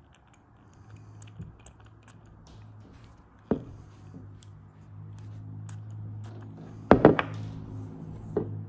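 Glass pump-spray bottle of body oil being handled: a sharp click about three and a half seconds in, then a quick cluster of louder knocks around seven seconds, over a steady low hum.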